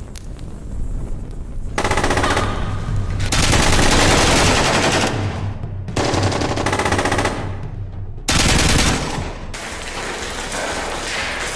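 Rapid gunfire in four bursts, each about a second or two long, starting about two seconds in. A lower, steady noise follows for the last couple of seconds.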